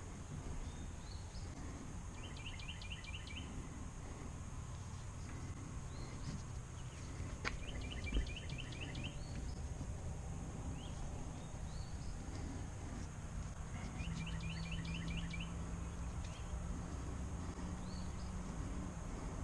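A songbird singing three short phrases of rapid repeated notes, about a second each, over a steady high drone. A sharp click and then a thump, the loudest sound, come about eight seconds in.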